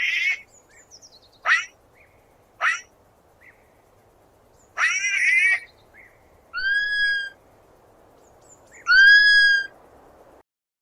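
Sloth calls: a string of high-pitched squeaky cries, with a few short sharp ones, then a longer cry, then two clear whistled calls near the end.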